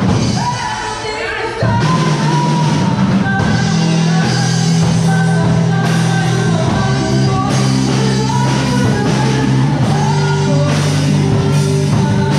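Live rock band playing through PA speakers: a singer over guitar, bass and drums. The music drops briefly about half a second in, then the full band comes back in.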